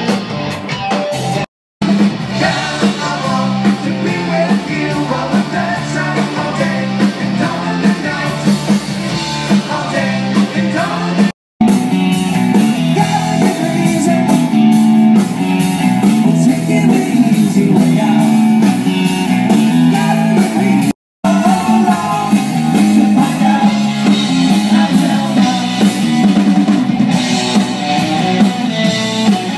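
Live amplified rock band playing a song: guitars, keyboard and drums with a singer. The sound cuts out completely for a split second three times.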